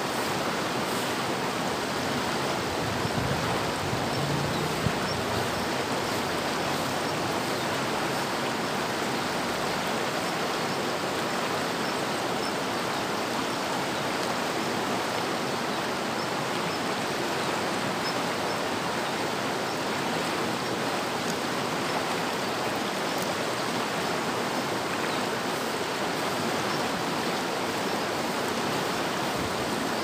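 River water rushing steadily, an even, unbroken sound of flowing water.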